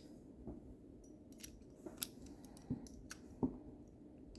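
Lever-lock pick and turning tool working inside a lever lock: a dozen or so small, irregular metallic clicks and ticks as the levers are lifted and probed. The loudest clicks come a little after two seconds and about three and a half seconds in.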